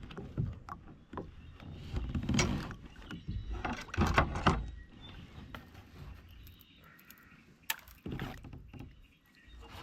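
Irregular knocks and thumps from handling gear aboard a plastic fishing kayak, loudest at about two and a half, four and eight seconds in.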